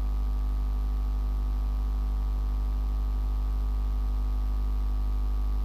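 Steady low electrical mains hum with a fainter buzz above it.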